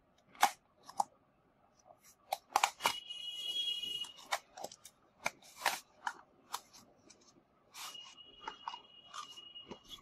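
A small cardboard box being opened by hand: quick crackles and clicks of the card flaps, with a drawn-out squeaky scrape of card sliding against card twice, once a little under three seconds in and again near the end, as the inner box is pulled out of its sleeve.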